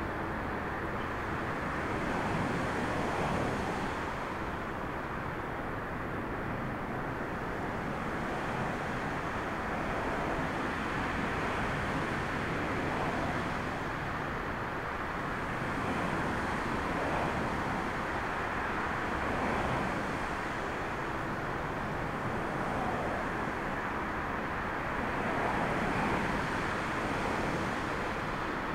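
Steady rushing noise of storm wind, swelling a little every few seconds, with the distant jet engines of a twin-engine airliner on final approach.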